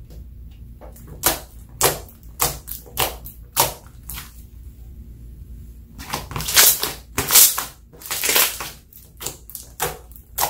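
Clear slime coloured with eyeshadow and glitter being stretched, folded and poked by hand, giving a run of sharp wet pops and clicks. They come about twice a second at first. A denser, louder cluster follows around the middle, while the slime is pulled into thin bubbled sheets. More single pops come near the end.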